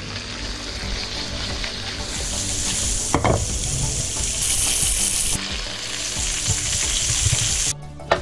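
Trevally fillets sizzling steadily in hot fat in a frying pan. There is a single knock about three seconds in, and the sizzle falls away abruptly near the end.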